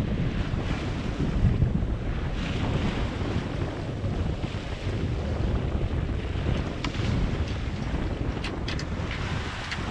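Wind buffeting the microphone over the rush of water along the hull of a Sun Odyssey 40 sailing yacht under sail. A few short clicks come in the second half.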